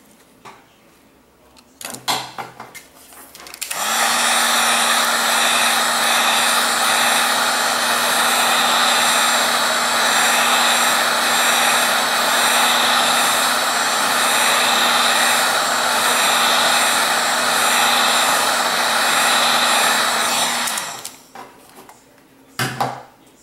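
Heat gun running, a steady rush of blown air over a constant motor hum, switched on about four seconds in and off near the end; it is heating the iPad Air 2's screen edge to soften the adhesive under the glass. A few short handling knocks come before and after.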